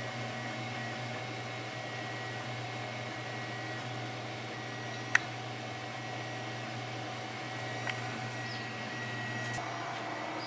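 Maximus 3D printer running a print: its stepper motors whine in steady tones that start and stop as the head moves, over a constant fan hum. There is a sharp click about five seconds in and a smaller one near eight seconds.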